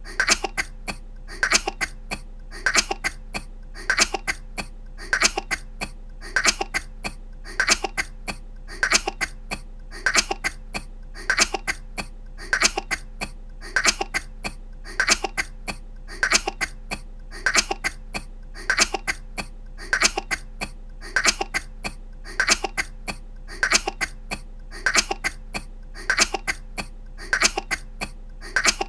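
A woman coughing in quick little fits of two or three coughs. The fits repeat at an even pace a little slower than once a second, as one short cough looped over and over.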